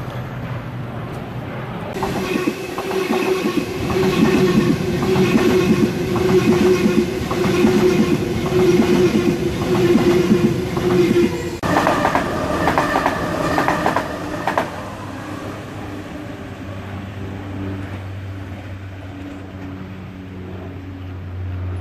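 A Sydney Trains A-set Waratah double-deck electric train runs past close by, its wheels clattering over the rail joints under a steady hum and whine from its drive. A higher tone joins about twelve seconds in. The train then fades, and a lower rumble from another approaching train builds near the end.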